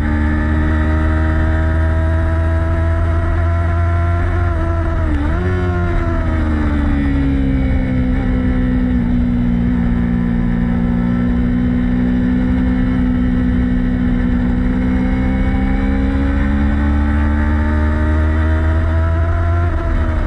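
Motorcycle engine running hard on track, its pitch sliding slowly down and then climbing again, with a quick drop and recovery about five seconds in and again at the end, over a steady low rumble.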